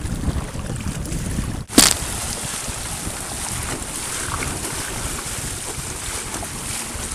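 Wind buffeting the microphone and water rushing and splashing along the hull of a Hobie trimaran sailing kayak under way in chop. A single sharp click comes just under two seconds in.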